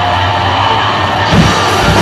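Death metal band playing live: heavily distorted guitars and bass holding a low, dense chord, with drum hits coming in about a second and a half in.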